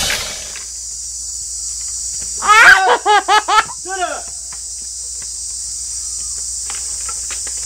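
Steady high-pitched insect chorus, crickets or cicadas. About two and a half seconds in, a voice gives a quick string of five loud, high calls, each rising and falling in pitch, over about a second, then one more just after.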